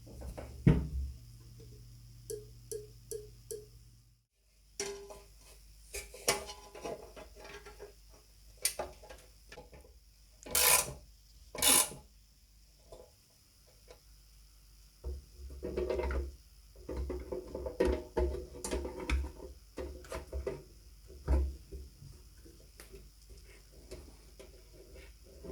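Irregular knocks, clicks and clatter of hand-worked parts in a workshop, with two short hissing bursts a little before the middle.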